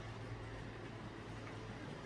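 Faint steady hum of small electric model locomotives running on the track, with a low, even drone.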